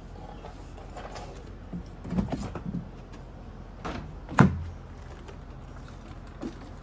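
Handling knocks and clicks at a car's rear door and wheel arch: a cluster of small knocks, then one sharp knock about four and a half seconds in, as the door is worked and the panel wiped down.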